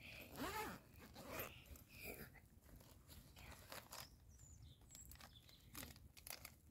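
Near silence, with faint rustling and scattered soft clicks.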